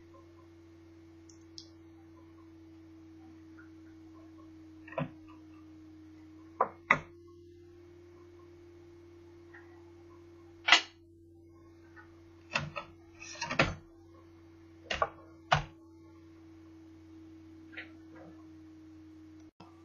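Irregular sharp clicks and knocks of laptop parts and tools being handled during disassembly, the loudest about eleven seconds in and a quick cluster a couple of seconds later, over a steady low hum.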